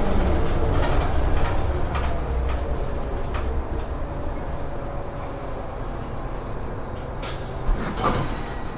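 Interior of a city transit bus: the low rumble of its engine and drivetrain fades as the bus slows to a stop at a station, followed by a few sharp clicks and knocks near the end.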